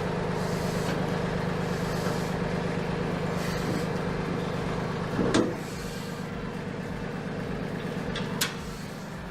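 Mahindra 1526 tractor's three-cylinder diesel engine running steadily, with a loud metallic clunk about five seconds in, after which the engine note drops slightly, and a sharp click near the end.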